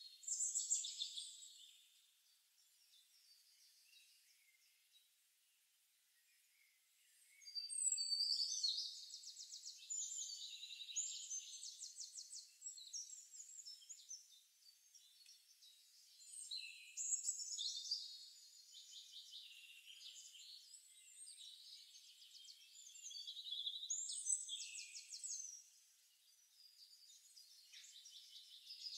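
Forest birdsong from a nature recording: faint, high-pitched chirps and rapid trills in phrases a few seconds long. There is a quiet stretch of several seconds near the start.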